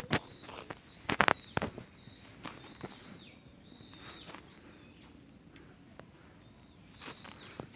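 Footsteps crunching on a forest trail, loudest about a second in, with short high bird calls scattered throughout.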